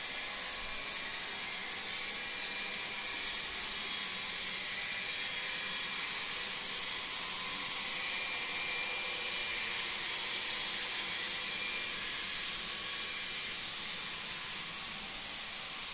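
Model train running along its track, a steady whirring hiss of wheels and motor with a faint high whine.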